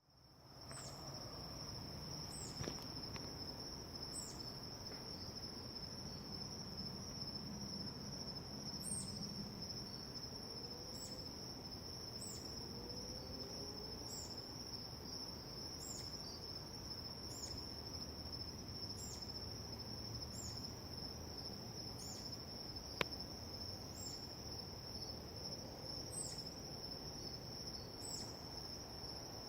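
Steady high-pitched drone of night insects, with a short high chirp repeating about every second or so above it and faint road noise underneath. One sharp click about three-quarters of the way through.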